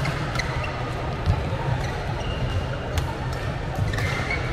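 Badminton doubles rally: irregular sharp racket hits on the shuttlecock and brief squeaks of court shoes on the mat. Hits from other courts in play are mixed in, in a large echoing hall.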